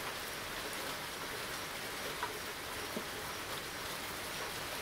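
Steady rain falling on a wet street: an even hiss, with a couple of slightly louder drops partway through.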